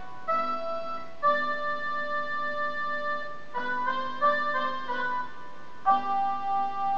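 Portable electronic keyboard played with a harmonica voice: a slow melody of long held notes, with a quick run of shorter notes in the middle and a long note near the end that wavers in loudness.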